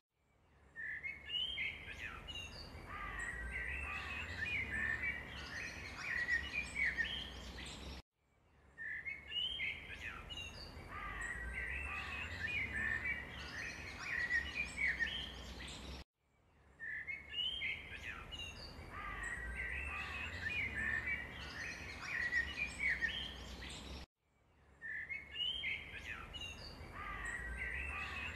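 Small birds chirping and twittering in quick, short calls. It is a short recording looped: it cuts out briefly and starts over about every eight seconds.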